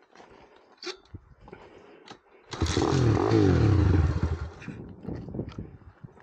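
Small 110cc single-cylinder minibike engine revving up hard for about two seconds, its pitch rising, then dropping back. Lighter clicks and rattles come before and after.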